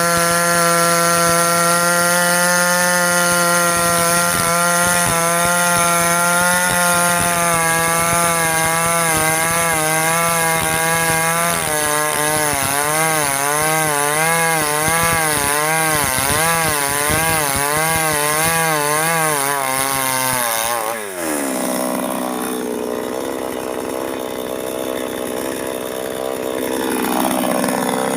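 Two-stroke chainsaw at high revs cutting oil palm, its engine note wavering under load from about eight seconds in. Around twenty seconds in the throttle is let off and the pitch falls to a lower, uneven running; the saw revs up again near the end.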